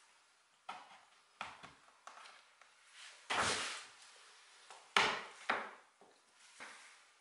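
Small wooden pieces knocking and scraping against a wooden chair rail as a thin wooden shim is fitted into its joint. There are a few light clicks, then a longer scrape a little over three seconds in, then two sharp knocks around five seconds and a softer one near the end.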